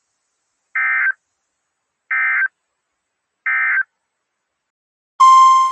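Three short, identical bursts of Emergency Alert System (SAME) digital data tones, about 1.4 s apart, the end-of-message code closing a weather-radio alert. About five seconds in, the loud, steady 1050 Hz NOAA Weather Radio warning alarm tone starts, announcing the next alert.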